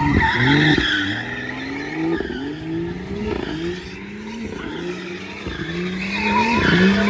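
BMW engines revving hard while drifting, the pitch climbing and dropping again and again as the throttle is worked, with tyres squealing on the asphalt, loudest at the start and again near the end.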